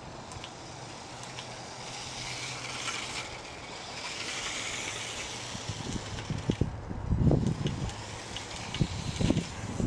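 Small electric RC car's motor whining as it drives on its foam wheels, swelling in the middle. Irregular low thumps start about six seconds in and are the loudest sounds.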